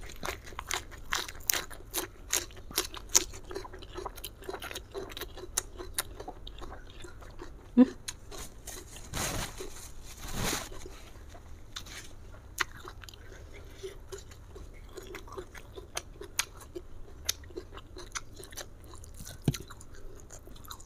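Close-up chewing of crisp raw vegetables, with many sharp crunches that come thickly at first and thin out later. About nine and ten seconds in come two longer breathy blows, a nose being blown into a tissue.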